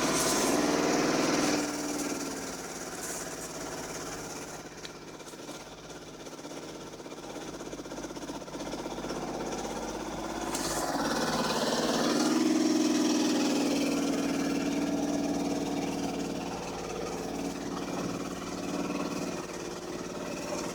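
2005 Dodge Magnum's 2.7-litre V6 engine running at a rough idle, the idle fault that also makes it hard to start. About halfway through the engine gets louder and higher for a few seconds, then eases back.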